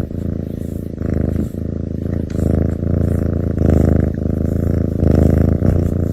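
Domestic cat purring loudly and close up, a steady low rattle that swells and eases with each breath, about every half to three-quarters of a second.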